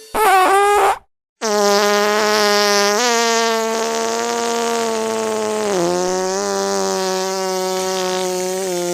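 Fart sound effect: a short wavering blast, a brief break about a second in, then one long, steady, buzzy fart that drops slightly in pitch around six seconds in.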